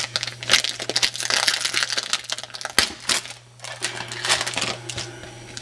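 Crinkling and rustling of a foil trading-card pack and cards being handled, with many quick sharp ticks. It is dense for about three seconds, then lighter after a short lull.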